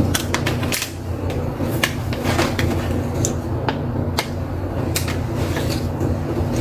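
A cashew-roasting machine running with a steady low hum, while the cashews click and knock irregularly, a few sharp clicks a second.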